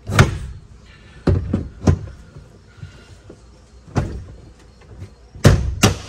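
Polaris General UTV's hinged windshield knocking and thudding against its frame and latch as it is forced against stiff gas shocks, about seven uneven knocks with a quick loud pair near the end; it will not snap into its latch.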